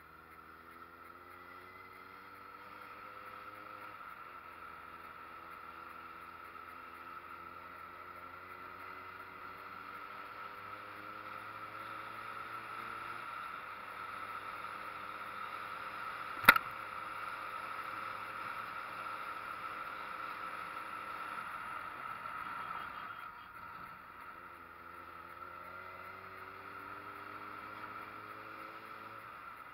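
A street motorcycle's engine pulling uphill, its pitch climbing through each gear and dropping back at each gear change, over a steady hiss of wind and road noise. A single sharp click about sixteen seconds in is the loudest sound.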